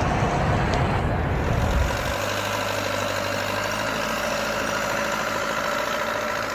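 A steady engine hum, after a rough rumbling noise in the first two seconds.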